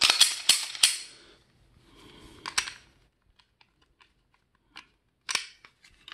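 Sharp plastic-and-metal clicks and rattles from a Glock 22 pistol's slide and frame being handled as it is taken apart and put back together. A quick cluster of loud clicks comes at the start, a softer rustle with one more click about two and a half seconds in, and a single click near the end.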